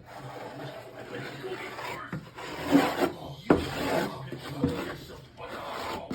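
Scratchy rubbing of a drawing tool being scribbled across paper, with a few sharp taps of it against the surface.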